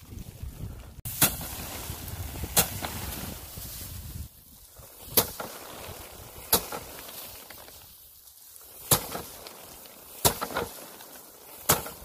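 Bundles of harvested rice stalks beaten by hand against a slatted bamboo threshing rack to knock the grain off. There are seven sharp whacks at uneven intervals of one to two and a half seconds.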